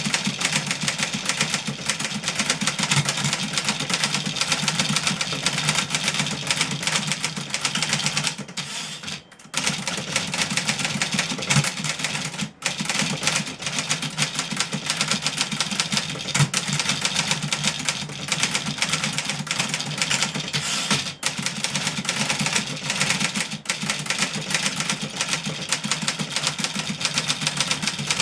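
1963 Remington Model 11 portable typewriter being typed on fast, a dense run of keystrokes that pauses briefly about a third of the way through.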